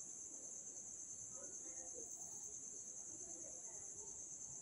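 Crickets chirping steadily, a constant high-pitched trill, with faint scratching of a marker writing on a whiteboard.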